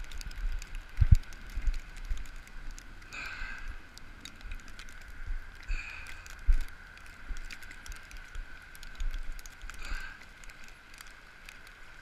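Footsteps walking through fresh snow over a rocky shoreline: irregular low thumps of footfalls with small crunching clicks.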